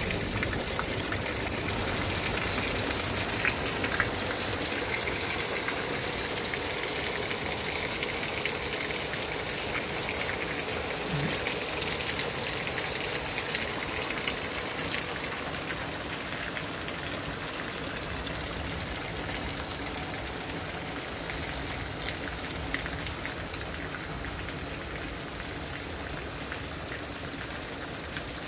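Steady rain falling, a dense hiss with scattered sharp taps of drops hitting close by, easing slightly toward the end.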